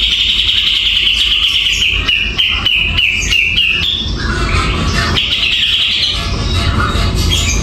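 Caged kapas tembak, a bulbul, singing in full voice: a rapid high trill, then a string of short stepping notes, and another trill about five seconds in. Background music plays underneath.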